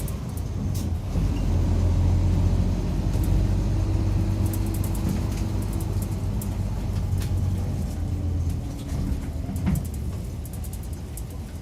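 Cabin running sound of a Mitsubishi Fuso Aero Midi MK bus under way: a low engine drone that drops away about eight and a half seconds in, with light rattles from the bodywork.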